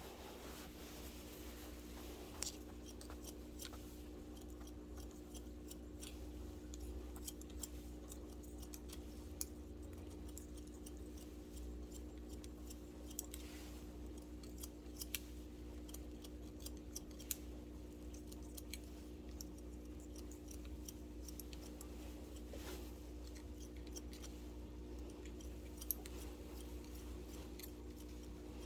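Long barber's shears snipping hair, sharp cuts at irregular intervals.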